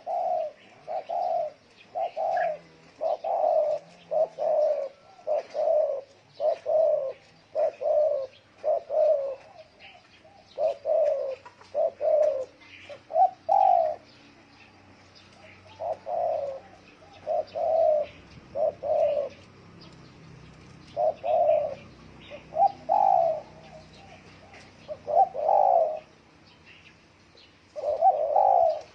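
Spotted dove cooing: a run of short, low coo notes repeating about once a second. There are a few longer pauses in the second half.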